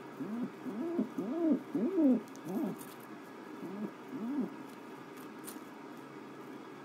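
White pet dove cooing: a quick run of short rising-and-falling coos over the first few seconds, then two more a little later.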